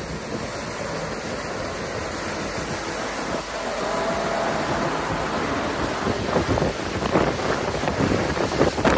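A lorry and then a car driving through deep floodwater, water rushing and splashing up from the wheels, with wind on the microphone. The splashing grows louder and choppier over the last few seconds as the car ploughs through.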